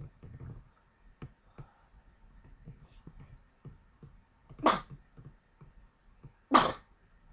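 A man sneezing twice in his sleep, sharp and loud, the second sneeze louder; he has a bad cold.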